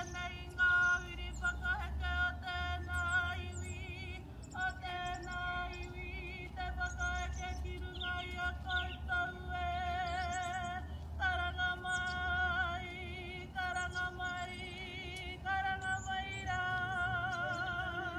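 A woman's karanga, the high ceremonial call that opens a Māori pōwhiri, sung in long held phrases with a strong wavering vibrato and short breaks between them. Birds chirp faintly behind it.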